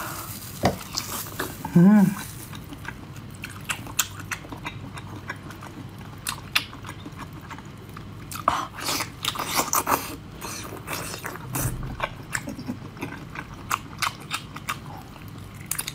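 Close-up biting and chewing of thin slices of spicy, chili-oil-coated food, heard as an irregular run of short mouth clicks that is thickest around the middle.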